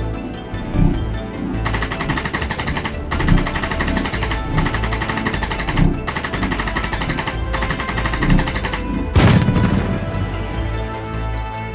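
Rapid automatic gunfire in five bursts of about a second each, then one loud boom about nine seconds in, over background music.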